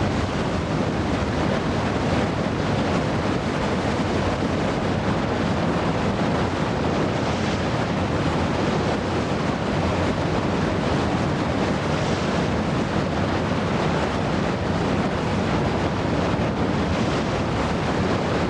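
Steady, loud rush of whitewater rapids, the river pouring over and around boulders.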